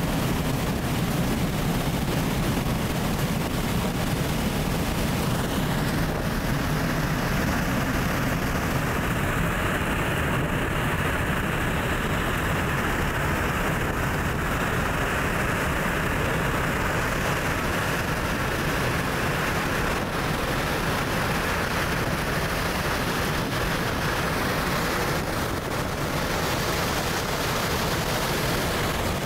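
Steady in-flight roar of rushing wind and jet engines at the open rear cargo ramp of an aircraft, with MiG-35 fighters flying close behind; the tone shifts slightly a few seconds in.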